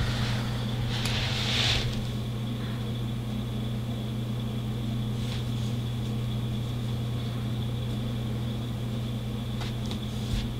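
Steady low electrical hum with a thin high whine above it, and a brief soft rustle about a second in.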